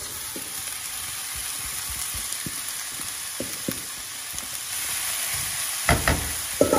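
Oil, onion and green chili sizzling in a non-stick frying pan on a high gas flame while shredded boiled chicken is scraped in from a steel bowl with a plastic spoon and stirred, with light scrapes and taps. A couple of louder knocks of utensils against the pan come near the end.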